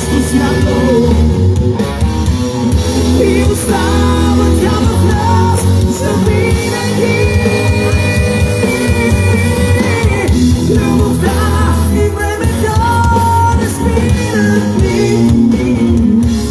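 Live rock band playing loudly through a PA: electric guitar, bass guitar and drums with a male lead singer's voice, and a long held high note in the middle.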